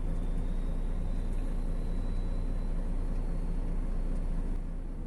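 Steady engine drone and road noise heard from inside the cab of a lorry under way, with a faint high whine over it.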